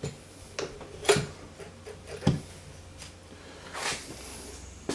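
A few separate knocks and clicks, about a second apart, as a small rotary tool is handled and fitted into a homemade drill-press stand. The tool's motor is not running.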